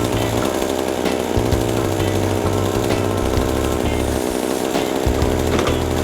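Chainsaw running steadily at high speed, with an uneven low rumble underneath.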